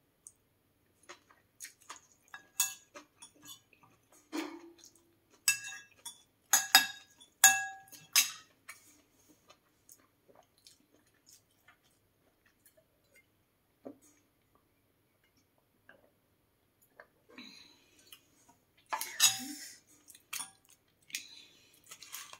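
Metal spoon and fork clinking and scraping against ceramic plate and bowl while eating, a string of short clinks, several of them ringing briefly, with quieter chewing sounds in the gaps.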